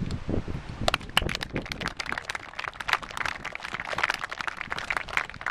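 Audience applauding: a crowd of many hands clapping, starting about a second in.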